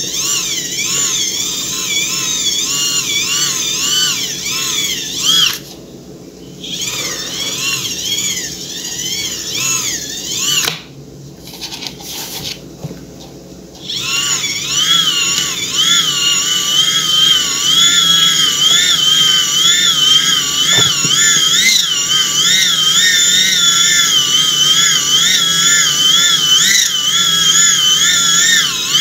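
Power drill spinning the shaft of a small synchronous motor used as a generator: a high whine that wavers in pitch. It eases off twice, about six and eleven seconds in, then runs steadily again from about fourteen seconds.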